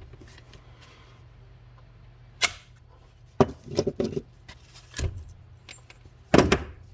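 Scattered sharp clicks and knocks from handling tools and parts during a pop-rivet repair, loudest about two and a half seconds in and again near the end, over a faint steady low hum.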